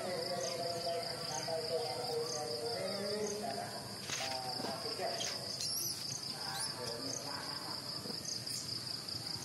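Insect chorus of crickets or cicadas: a steady high buzzing with a regular pulse about twice a second. In the first few seconds, lower wavering voices or calls sound under it.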